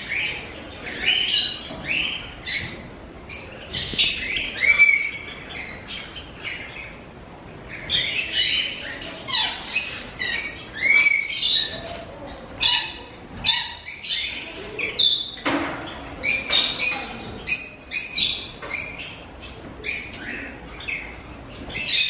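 African grey parrot chirping and whistling in a quick run of short calls and pitch glides, with a brief lull, and one louder squawk about fifteen seconds in.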